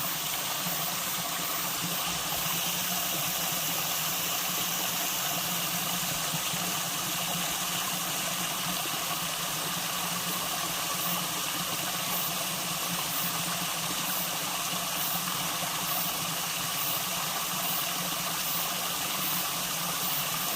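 Mountain valley stream flowing steadily, a constant rush of water.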